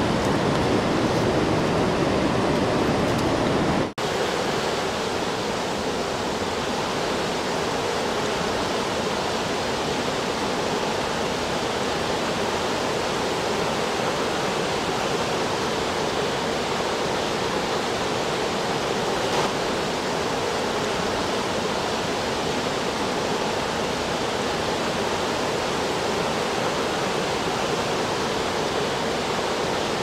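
Waterfall and rapids rushing with a steady, even roar of water. About four seconds in there is a brief break, after which the water continues with less low rumble.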